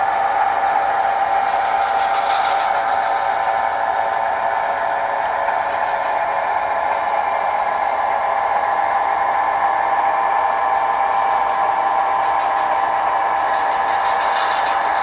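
HO scale model train moving slowly along the layout track, giving a steady, even running drone with a few faint high clicks.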